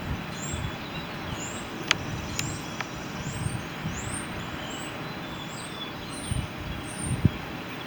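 Outdoor ambience: a bird chirping again and again in short, high, rising notes over a steady low rumble, with a couple of sharp clicks about two seconds in and brief low thumps near the end.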